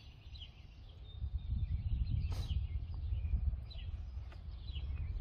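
Outdoor background: a low rumble, loudest in the middle, with a bird giving a few short falling chirps and one sharp click about halfway through.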